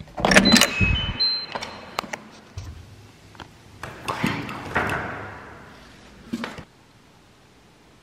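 A front door is unlocked and opened: latch clatter with a short run of electronic beeps from its digital lock in the first second or so. Then the crinkle of a paper gift bag being picked up, and a brief knock a little past six seconds in.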